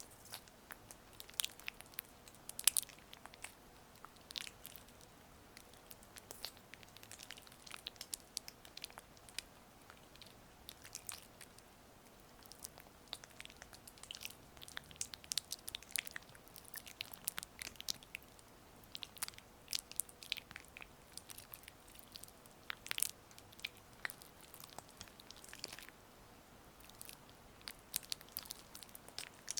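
A gua sha stone sliding over oiled skin during an ASMR face massage. It makes irregular wet, sticky crackles and small smacks throughout.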